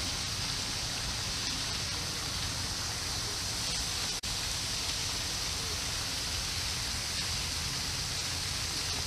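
Steady rushing hiss of a pond's spray fountain splashing water, even and unchanging, with a momentary dropout about four seconds in.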